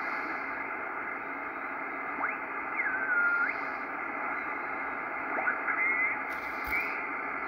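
Receiver audio from a Ten-Tec Corsair II HF transceiver as its main dial is tuned down across the 20-metre band: steady band hiss with the whistles of mistuned sideband signals sliding in pitch as they pass, one held for about half a second around three seconds in. A short click comes near the end.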